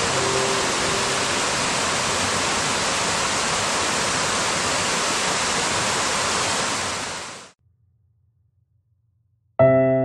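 Steady hiss of rain, with the last few notes of soft music under it at the start. The rain fades out about seven seconds in, a short silence follows, and a piano tune starts near the end.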